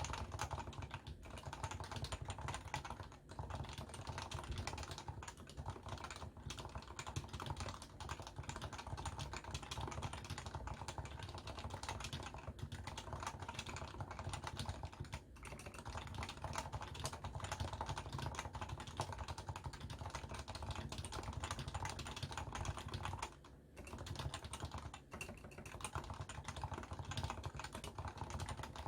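Continuous typing on a Leopold FC660C keyboard with stock, non-silenced 45 g Topre switches, the keystrokes running close together with a short break about four-fifths of the way through. Picked up by a Samsung Galaxy S10+ phone microphone.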